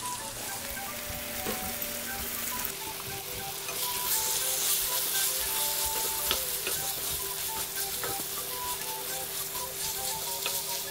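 Chicken pieces sizzling in oil and masala in a nonstick wok while a wooden spatula stirs them, with scattered clicks and scrapes against the pan. The sizzle gets louder about four seconds in.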